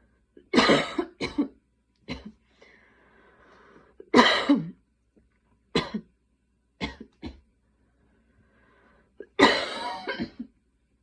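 A woman's coughing fit: repeated hard coughs in clusters of one to three, with faint breathing between bouts. The strongest bouts come about four seconds in and near the end.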